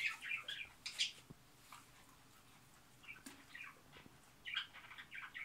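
Pembroke Welsh corgi whimpering in short, high squeaks, in a cluster near the start and again near the end.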